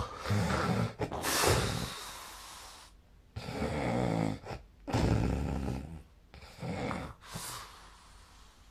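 A sleeping person snoring: several low snoring breaths, each about a second long, with breathy hiss between them.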